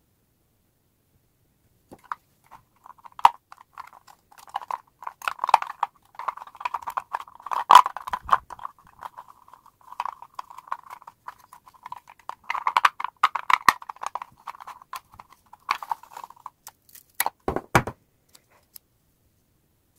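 Washi tape crackling as it is drawn off the roll in a clear tape dispenser, on and off for several seconds. A few sharp clicks near the end.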